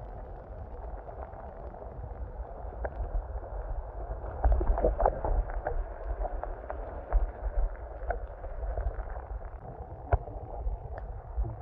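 Muffled water noise heard through an underwater camera's housing: a low rumble with scattered small clicks and knocks, busier and louder around the middle.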